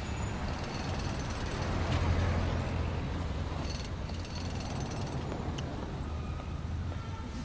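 Construction-site machinery: a steady low rumble with rattling and a few sharp clanks, loudest about two seconds in.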